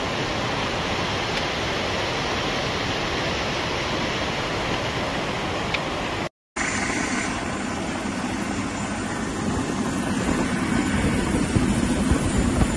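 Steady rushing roar of fast-flowing floodwater. After a brief cut it gives way to a deeper, heavier rumble that grows louder near the end.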